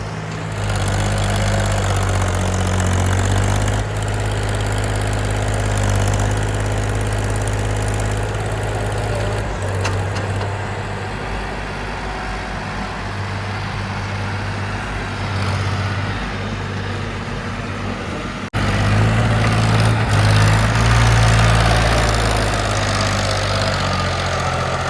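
Diesel engines of a JCB 3DX backhoe loader and a tractor running under work, the low engine note swelling and easing as the machine works. The sound shifts abruptly about 4, 9 and 18 seconds in.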